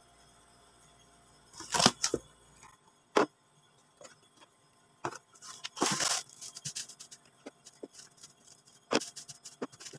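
Plastic containers being handled and set down in a plastic basin: sharp knocks and clatter about two seconds in, again at three, and near the end, with a crinkling rustle about six seconds in.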